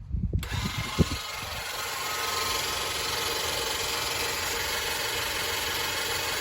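12V electric hydraulic car jack's motor pump switching on suddenly and running steadily, with a few low knocks and one sharp knock in the first second.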